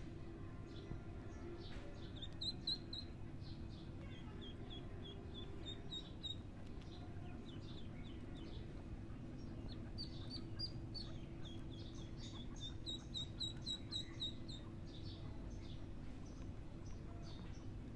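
Ducklings peeping: runs of short, high peeps, about four or five a second, that come and go several times, over a steady low hum.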